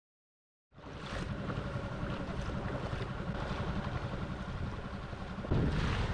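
Wind buffeting the microphone and water rushing past as a small boat moves along the shore, starting under a second in after a moment of silence and getting louder about five seconds in.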